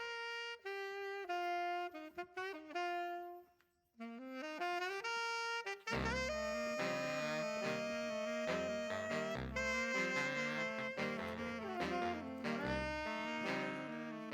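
Background music: a single melody line plays alone at first, then bass and a fuller band join about six seconds in.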